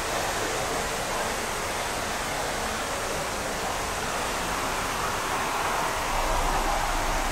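Steady rush of flowing river water, an even hiss that grows a little louder near the end.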